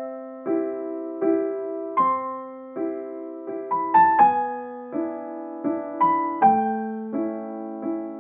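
Background music: a soft piano playing slow chords, each struck and left to fade.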